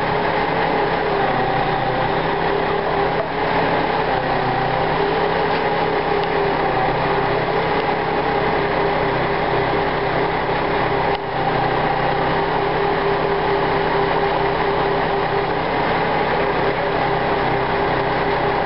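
Engine of the machine lifting the bundle of floor joists, running steadily at a constant speed with an unchanging drone.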